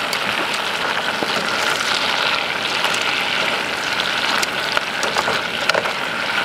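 Crawfish bubbling and sizzling in a pot of melted butter and bacon grease: a steady crackling hiss with scattered sharp pops.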